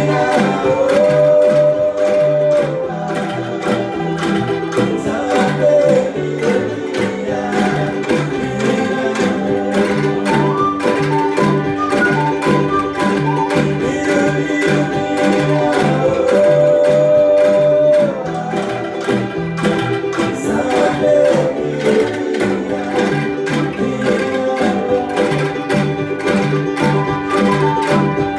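Angklung ensemble playing a song: shaken bamboo tubes rattling out sustained chords and a melody over a steady beat.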